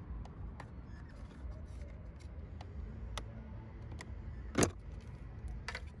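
Scattered small plastic clicks and rattles from a car door trim panel and its mirror switch connector being handled, with one sharp, louder click a little past halfway. A low rumble runs underneath.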